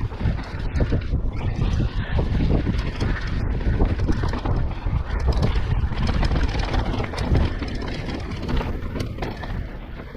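Enduro mountain bike descending a fast dirt trail: a continuous rumble of tyres over the ground, with many small clicks and rattles from the bike, and wind buffeting the action-camera microphone.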